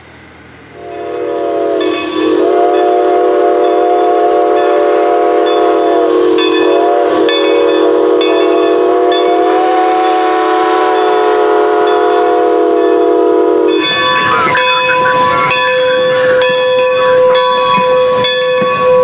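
Strasburg Rail Road No. 90's steam whistle, its 'ghost whistle', blown as one long blast of several chime notes together. It opens gradually, dips in pitch a few times where the valve is worked, and cuts off sharply. The locomotive bell then rings with a steady, regular stroke.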